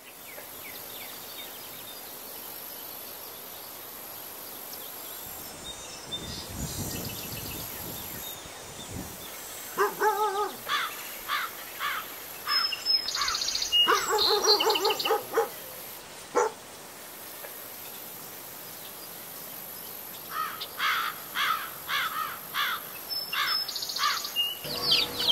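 Outdoor rural ambience: a steady hiss with birds calling in repeated short notes, in two spells, the first about ten seconds in and the second near the end.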